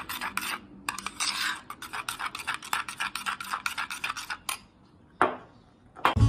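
Metal spoon stirring a thick, creamy mayonnaise-based sauce in a bowl, scraping against the bowl in quick rhythmic strokes. The stirring stops about four and a half seconds in, with one more short scrape a little later.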